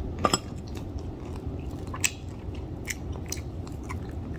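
Close-up chewing of a mouthful of fried chicken wing, with irregular wet mouth clicks, the sharpest just after the start.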